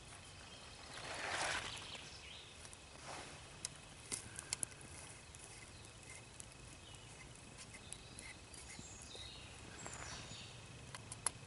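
Small twig fire crackling faintly under a titanium pot, with a few sharp clicks and taps. A soft swelling rush about a second in and another smaller one near three seconds.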